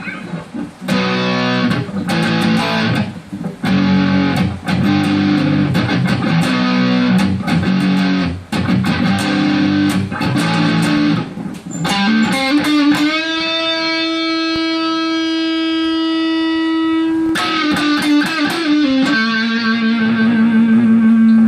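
1995 Korean-made Epiphone Sheraton II semi-hollow electric guitar on its bridge pickup, played through a Vox VT20+ amp. It plays rhythmic strummed chords, then one note held for about four seconds, then a few more chords and a second long held note near the end.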